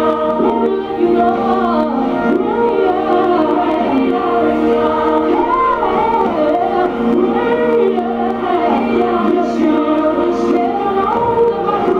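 A song with a choir singing over steady held chords, the music that the dance is performed to.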